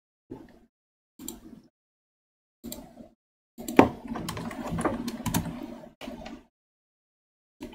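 Computer keyboard keystrokes: a few single taps about a second apart, then a quick run of typing in the middle, then one more tap near the end.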